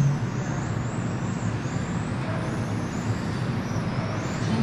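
Electric 1/10-scale RC touring cars running on a carpet track: a steady hiss of drivetrain and tyres with a thin, high motor whine that rises and falls with the throttle.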